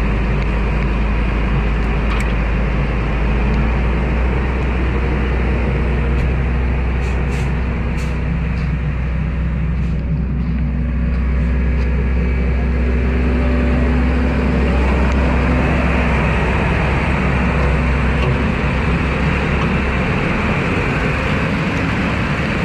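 Heavy diesel equipment engine running steadily; its deep low drone changes and drops away about twenty seconds in.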